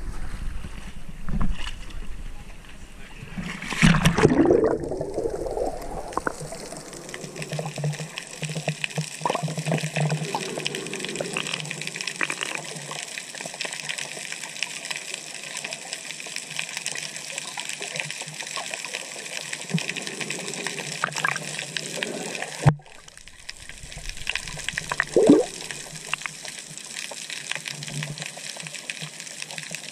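Seawater around a GoPro camera as it goes from the sea surface to underwater: a splash about four seconds in, then muffled underwater sound, a steady hiss full of fine crackles with a few short gurgles.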